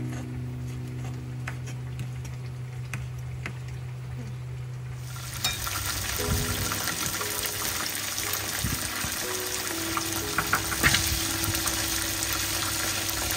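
Food sizzling in a hot pan, a dense hiss that starts abruptly about five seconds in, with a few sharp clicks as it cooks.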